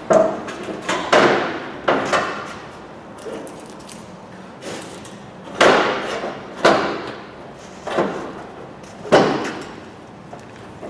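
Gloved hands thumping a Ford Focus Mk1 front wing panel to seat it into place on the car: a series of separate dull thumps about a second apart, with a short lull in the middle.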